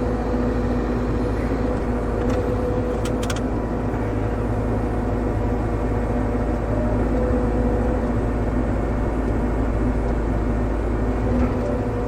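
Compact excavator's engine and hydraulics running steadily under load as the machine lifts and moves a heavy rock, with a few short clicks about two to three seconds in.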